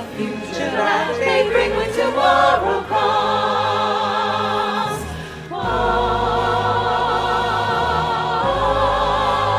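Massed choir of voices with accompaniment singing a song's finale: a moving sung line, then long held chords with vibrato, the chord changing twice about three seconds apart.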